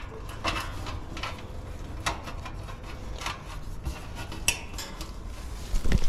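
Scattered metallic clinks and light rattles, about six sharp ones, from handling the heat pump's wire condenser fan grille and fan motor while the motor wires are fed through into the outdoor unit, over low handling rumble.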